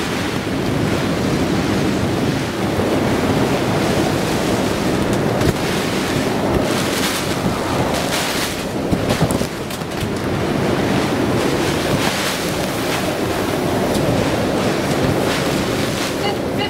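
Tropical cyclone wind and heavy rain, with the wind buffeting the microphone. The level swells and eases in gusts.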